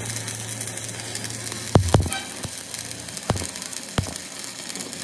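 Electric arc welding on a broken engine crankshaft: the arc's steady sizzling crackle, with a few sharp pops about two, three and four seconds in.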